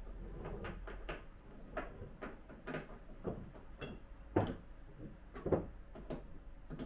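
Irregular light knocks and clunks of things being handled on wooden display cabinets, the two sharpest about four and a half and five and a half seconds in.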